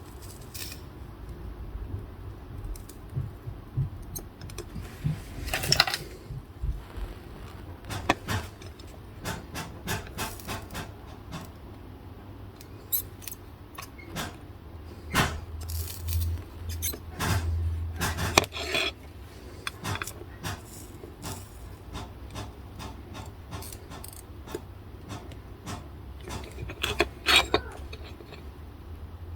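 Irregular small clicks, taps and scrapes of hand tools and small objects being handled on an electronics workbench, with clusters of louder knocks, over a low steady hum.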